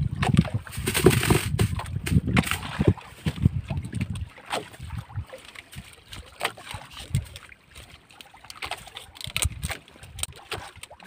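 Handling noise in a small wooden boat: irregular knocks and low thumps against the hull and rustling of the fishing rig, busy for the first few seconds, then sparser knocks.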